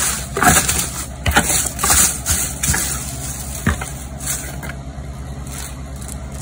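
Paper envelopes and wrapped items being handled inside a cardboard box: a run of short rustles and taps, most in the first few seconds and fewer toward the end, over a steady low hum.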